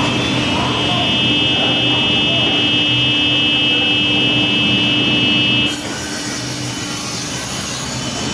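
Industrial panel saw cutting board, loud, with a steady high whine that drops away about six seconds in while the machine noise carries on.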